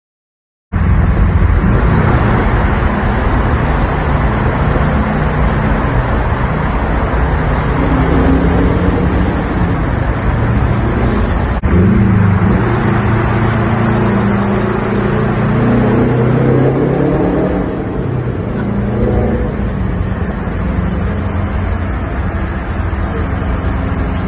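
2005 Subaru Legacy GT's turbocharged 2.5-litre flat-four running through an Invidia Q300 cat-back exhaust, its note rising and falling with throttle. It starts abruptly about a second in, and a sharp click about halfway through is followed by a louder stretch.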